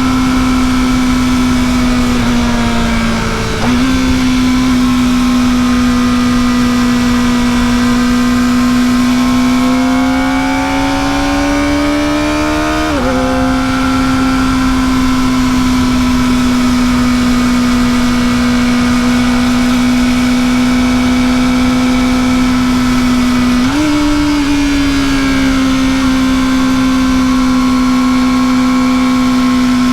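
Kawasaki ZX-4RR's 399 cc inline-four running through its stock exhaust at steady, fairly high revs. The pitch dips and snaps back a few seconds in, climbs slowly and drops sharply at a gear change about halfway through, and jumps up at another gear change later on before easing back to a steady note.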